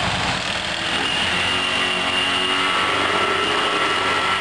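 Small gasoline engine of a handheld vibratory concrete screed running steadily, shaking the long screed blade as it is drawn over wet concrete, with a high whine rising out of the running noise for a couple of seconds.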